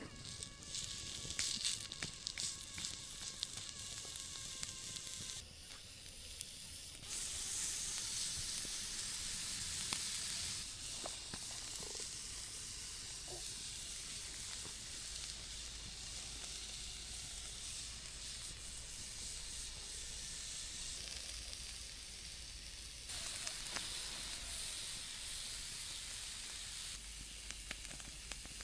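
Steak sizzling over a campfire: a steady hiss with scattered small crackles that abruptly gets louder or quieter a few times.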